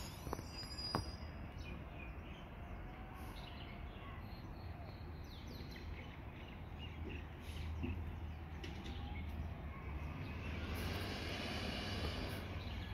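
Garbage truck's diesel engine running down the street, a steady low rumble, with birds chirping faintly. A broader rushing noise swells over the last couple of seconds.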